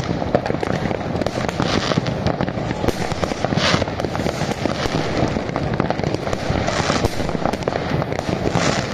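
Dense amateur New Year's Eve fireworks: a constant crackle of many firecrackers and rocket bursts popping without pause, with short hissing swells every second or two.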